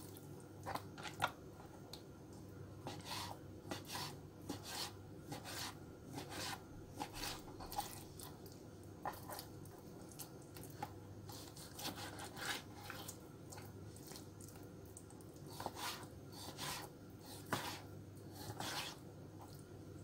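Kitchen knife slicing raw chicken breast into strips on a cutting board: faint, irregular cuts and light taps of the blade on the board, coming in small clusters.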